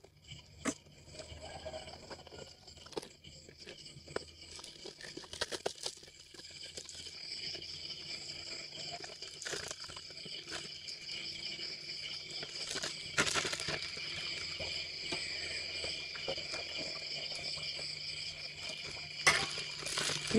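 Thin plastic bags crinkling and rustling with scattered sharp rustles as rice noodles are packed into them by hand. Insects chirp steadily in the background, a rippling high trill that grows louder about six seconds in.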